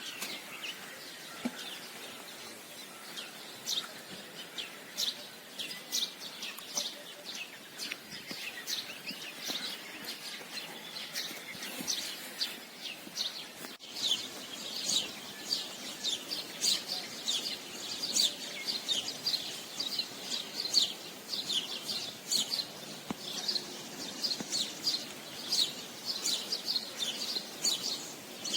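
Songbirds chirping and singing, many short high notes that grow much denser about halfway through.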